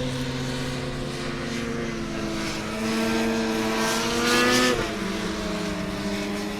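Snowmobile engine running, its pitch climbing steadily as it accelerates and loudest just before it drops back sharply about five seconds in, then running steadier at the lower pitch.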